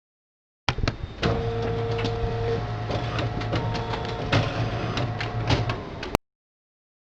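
Electrical buzzing sound effect: a steady low hum with a faint steady whine over it and irregular crackling clicks. It starts suddenly about a second in and cuts off abruptly near the end.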